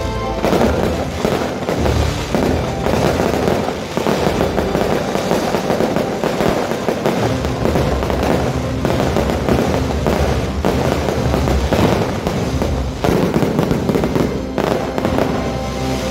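Fireworks crackling and banging in quick succession, with music playing underneath.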